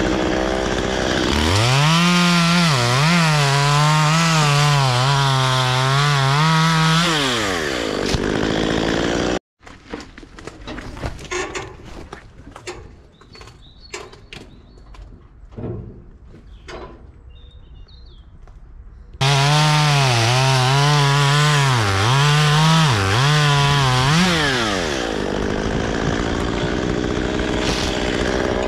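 Stihl two-stroke chainsaw revving to full throttle and cutting into walnut wood, its pitch wavering as the chain loads up. It breaks off abruptly into a quieter stretch of scattered knocks for about ten seconds. Then it cuts at full throttle again and drops back to a lower running speed near the end.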